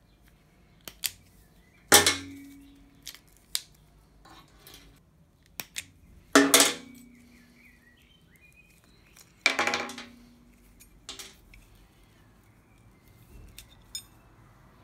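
Carpenter's pincers prying an old dry wooden handle off a wrought-iron hay hook: three sharp cracks as the wood splits, each followed by a short ringing. Small clicks and knocks of the metal tool and hook come in between.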